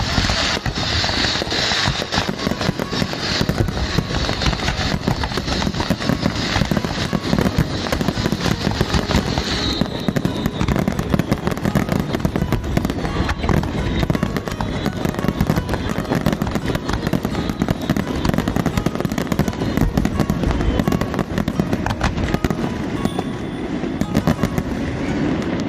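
Fireworks going off in a long, dense run of rapid crackles and bangs, with a high hissing fizz through roughly the first ten seconds.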